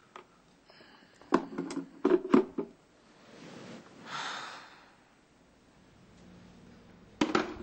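A quick run of sharp knocks about a second in, a breathy rushing noise in the middle, and two more sharp knocks near the end.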